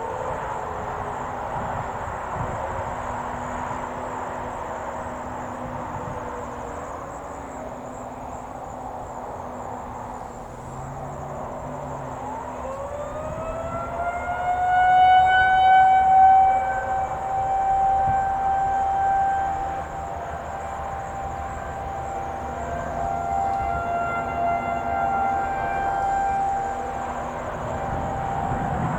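Several distant Federal Signal 2001-series rotating outdoor warning sirens sounding a steady tone for a monthly test. About twelve seconds in, a nearer siren winds up in pitch into a steady tone, its level swelling and fading as the rotating horn sweeps around.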